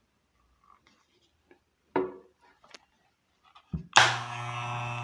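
Small handling clicks and a knock, then an electric hair clipper switched on about four seconds in, running with a steady hum, its blades freshly oiled to cure a noise.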